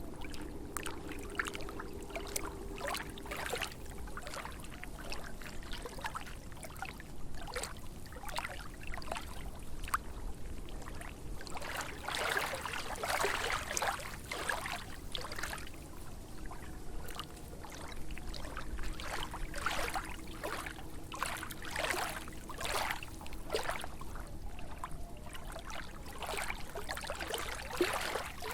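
Small lake waves lapping and splashing at the water's edge in an irregular run of light splashes, busier and louder for a few seconds about halfway through.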